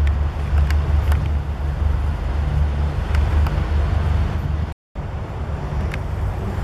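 Steady low rumble of distant highway traffic, with a few faint brief high ticks. The sound drops out for a split second about three-quarters of the way through.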